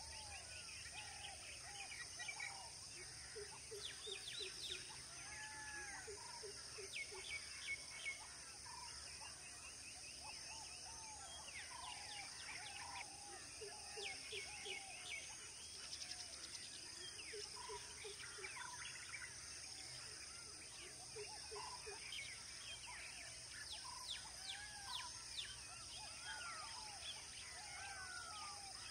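Several birds calling over each other in short whistles, chirps and quick trills, with a few bursts of four or five low repeated notes, over a steady high-pitched drone.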